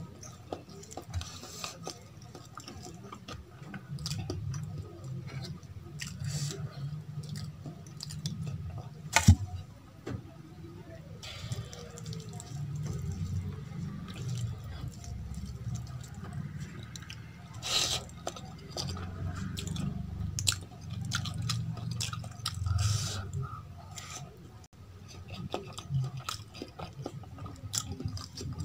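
Close-miked chewing and wet mouth sounds, with the soft squelch of rice and curry being mixed by hand on a steel plate. Scattered sharp clicks, the loudest about nine seconds in.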